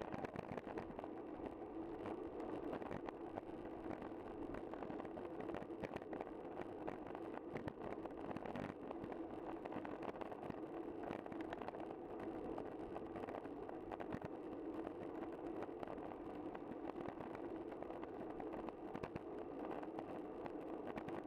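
Steady rolling noise of a bicycle moving along the road, with a continual patter of small clicks and rattles.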